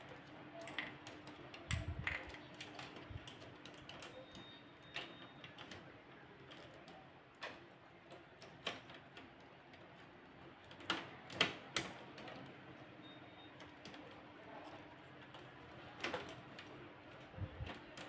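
Irregular small clicks and taps of hands handling the parts and wiring of a stripped-down HP LaserJet P1102 laser printer during reassembly. Sharper clusters of clicks come about two seconds in, around the middle and again near the end, over a faint steady hum.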